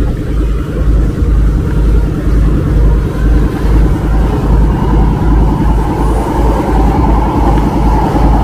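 Engine of a river passenger boat running steadily while under way, heard from on board: a loud, low rumble with a regular throb.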